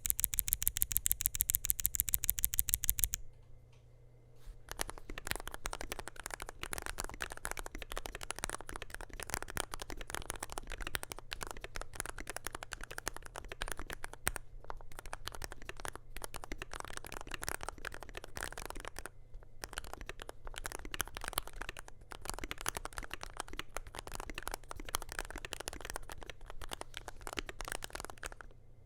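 Typing on a modified DrunkDeer A75 PRO keyboard with lubed RAESHA magnetic (Hall-effect) switches, PBT Cherry-profile keycaps, a stainless steel plate and an aluminium case: a dense, irregular run of keystroke clicks with a couple of short pauses. It opens with a fast, even run of sharp clicks for about three seconds, then a brief pause before the typing starts.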